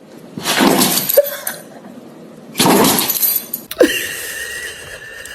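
Dogs sneezing: two sharp, noisy sneezes about two seconds apart.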